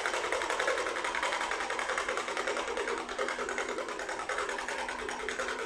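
A fast, steady mechanical rattle made of rapid, evenly spaced ticks.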